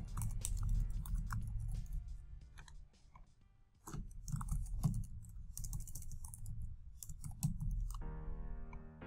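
Typing on a computer keyboard in two quick runs of key clicks with a short pause between them. Music with held notes comes in near the end.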